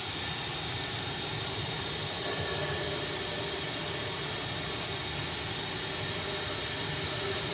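Steam locomotive letting off steam: a steady hiss with a low rumble underneath.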